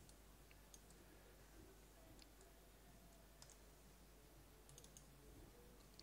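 Near silence: quiet room tone with a steady low hum and a few faint, sharp clicks from computer input devices.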